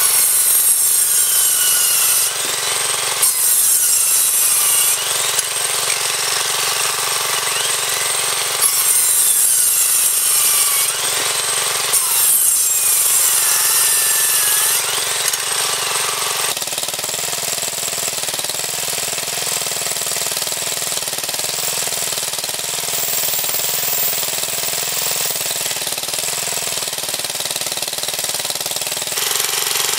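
Craftsman circular saw cutting through an old wooden timber in about four bursts, its motor pitch sliding as it loads. The saw runs on about 65 volts DC from an engine-driven alternator. About 16 s in the cutting stops and a steadier running sound carries on.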